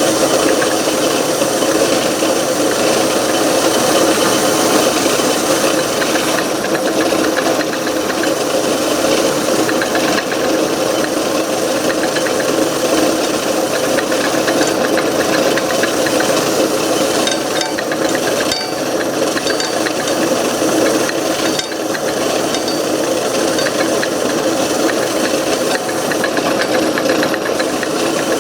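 Antique Garvin metal lathe running steadily while a parting tool cuts through the turned stock: a steady machine hum with a scraping cutting noise, and a few faint ticks in the second half.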